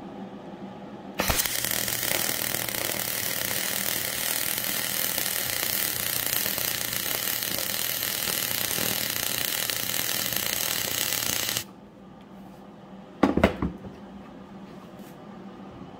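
Miller Spoolmate 100 spool gun MIG-welding aluminium with 4043 wire under pure argon: the arc strikes about a second in and runs as a steady, loud hiss for about ten seconds, then cuts off suddenly. A short knock follows a little later.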